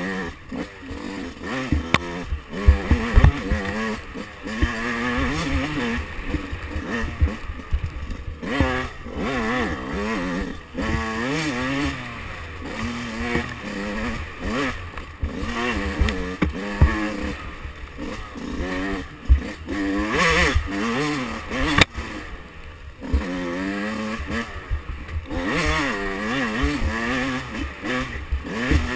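2005 Yamaha YZ125's 125 cc single-cylinder two-stroke engine being ridden hard on a tight trail. The pitch rises and falls constantly as the throttle is blipped on and off between turns, with frequent low thumps over the rough ground.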